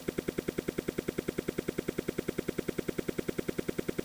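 A rapid, even pulsing tone, about twelve beats a second, unchanging throughout: an eerie electronic sound effect.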